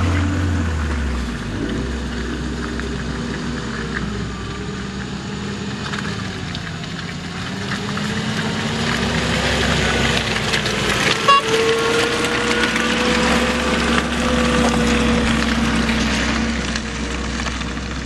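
Small 4x4's engine running at low revs as it crawls slowly over rough ground, its pitch drifting gently up and down. There is one short sharp knock about eleven seconds in.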